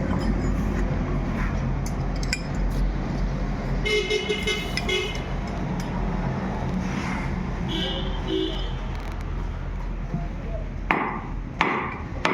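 Steady low hum with street-traffic noise, two short horn-like toots in the middle, and a few sharp knocks near the end.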